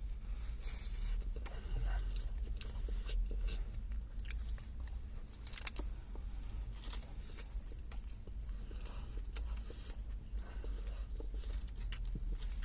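A person biting into and chewing a spicy chicken burger close to the microphone, with irregular soft crunching clicks.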